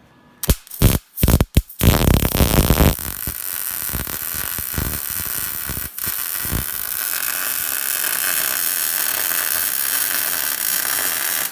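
Electric arc welding on a bumper. The arc stutters through a few short starts in the first two seconds, then runs as a steady hiss that cuts off abruptly at the end.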